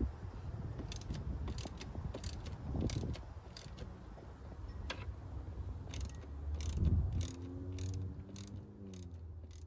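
Ratchet wrench clicking in short runs as bolts on a metal chimney-pipe brace are tightened, over a low rumble. Near the end a short hum slides down in pitch.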